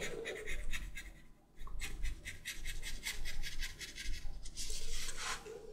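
Mechanical pencil scratching across paper in quick short strokes as a pattern outline is drawn, with a brief pause about a second and a half in.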